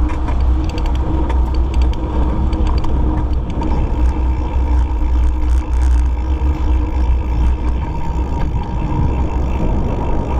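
Wind buffeting the microphone with the tyre and road noise of a mountain bike being ridden: a steady heavy low rumble, with a few light clicks in the first few seconds.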